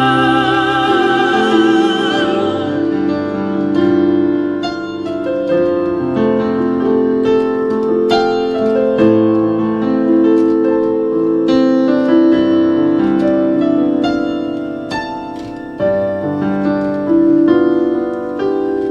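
Piano playing a slow, gentle instrumental interlude of chords and single notes in a worship song. A singer's held, wavering note fades out in the first couple of seconds.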